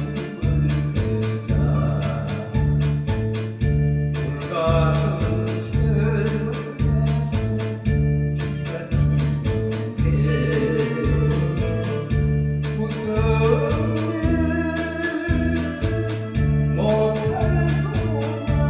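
A group of singers performing a song over instrumental accompaniment with a steady bass beat of about two notes a second; the voices come in with sung phrases between stretches of accompaniment.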